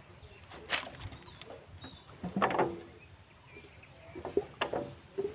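Single-cylinder diesel engine of a VST 130 DI power tiller being turned over slowly by hand at its pulley to check tappet clearance. A few short scraping and clunking sounds come at intervals of about two seconds.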